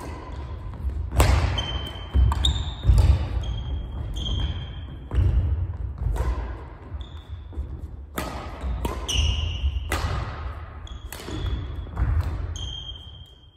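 Badminton singles rally on a wooden gym floor: sharp cracks of rackets striking the shuttlecock about once a second, with heavy footfalls and lunges and short high squeaks of court shoes. The hits echo in the hall.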